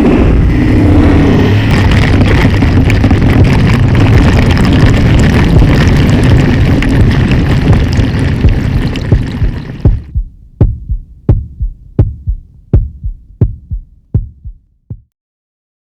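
A loud, dense rumbling wash of sound that breaks off at about ten seconds into a run of regular thumps, about one and a half a second, which fade away and stop about a second before the end.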